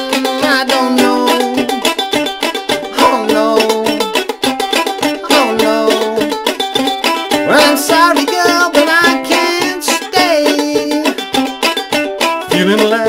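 Ukulele played clawhammer style: a fast run of picked and brushed notes in a steady rhythm, with no singing.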